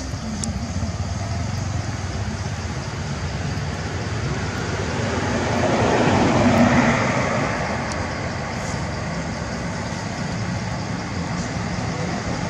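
Steady road-traffic noise, with a vehicle passing by that swells and fades about six seconds in.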